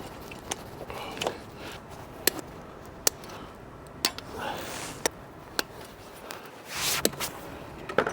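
Metal hand tools and engine parts being handled: a scattered series of sharp clicks and clinks, with a few brief scrapes.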